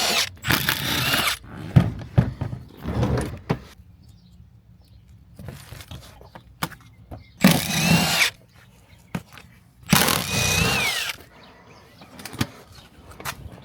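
Power drill/driver running in three short bursts, with lighter clicks and knocks between them, as bolts are backed out. Its whine bends in pitch, falling away at the end of the last burst.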